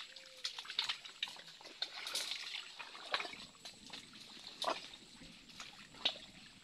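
Footsteps through wet mangrove mud and twig litter: irregular squelches and crackles.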